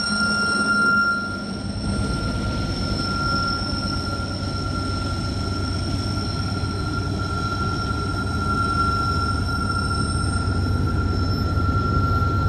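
Union Pacific manifest freight train's cars rolling by, with a steady low rumble of wheels on rail and a continuous high-pitched wheel squeal.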